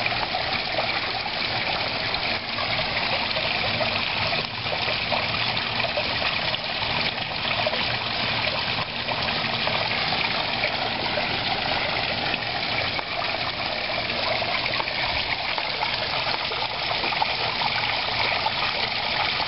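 Small rock waterfall spilling steadily into a koi pond, the falling water splashing onto the pond surface in a continuous, even rush.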